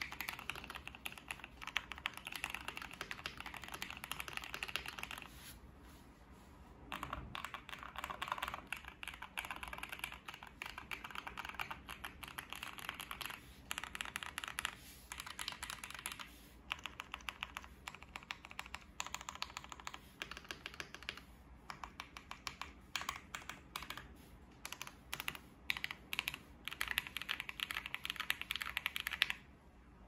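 Typing on a KBD67 Lite R3 mechanical keyboard with lubed and filmed Gateron Ink Black V2 linear switches on a polycarbonate plate: a fast stream of keystrokes in bursts, broken by a few short pauses and stopping just before the end.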